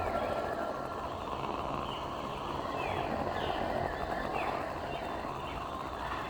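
Designed alien-jungle ambience: a steady low rumbling drone and hiss, with short falling creature-like chirps repeating every second or so.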